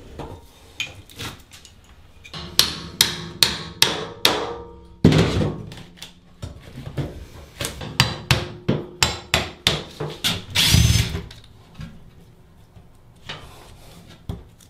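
Old ceramic wall tiles around a bathtub being knocked and pried off with hand tools: spurts of sharp knocks, several a second, with a longer, louder rasping noise about eleven seconds in.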